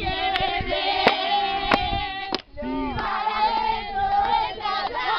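Young voices singing a sustained melody together, breaking off briefly about halfway through and then carrying on. A few sharp knocks sound over the first half.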